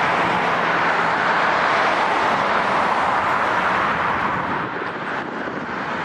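Airbus A350 jet engines on short final in a gusty crosswind: a steady rushing jet noise that eases a little about four and a half seconds in.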